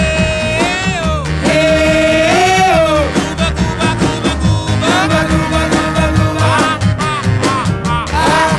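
Background music: a song with a singing voice holding long, bending notes over guitar and a steady beat.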